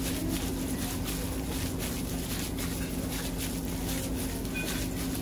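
Raw minced beef squishing wetly as a gloved hand kneads it in a stainless steel bowl, in soft irregular strokes, over a steady low machine hum.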